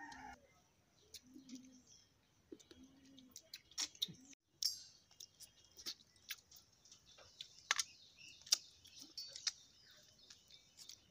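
Small birds chirping, with scattered sharp clicks from people eating rice with their fingers off steel plates.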